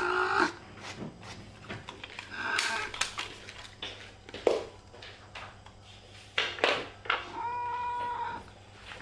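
Domestic cat meowing: a few short calls, then a longer, steady meow near the end. Soft clicks and rustles fall between the calls.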